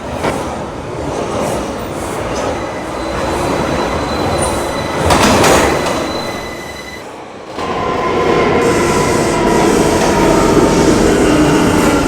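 Inside an R179 subway car running at speed through the tunnel: a loud, steady rumble of wheels on rail with a louder rush about five seconds in. From about eight seconds a steady high squeal of the wheels sets in over the rumble.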